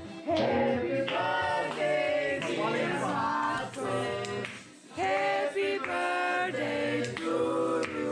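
A small group of people singing together without accompaniment, a birthday song around a cake with lit candles, with a brief break about halfway through.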